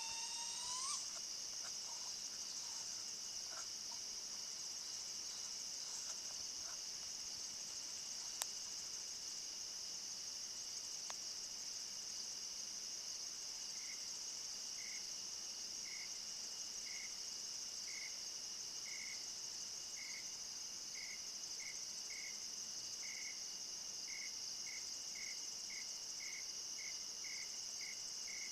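Steady high-pitched trilling of a night insect chorus. From about halfway, a lower chirp repeats, speeding up toward the end. About a second in, the tail of an unidentified animal's rising call fades out.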